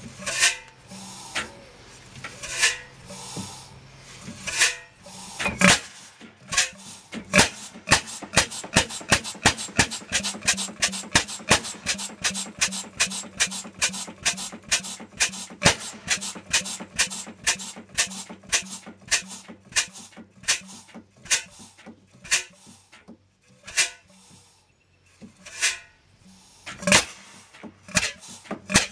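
Large horizontal single-cylinder stationary engine being started. A few irregular beats come while the flywheel is turned by hand, then it picks up into a steady run of sharp exhaust beats, about two to three a second. Near the end it falters briefly, then catches again.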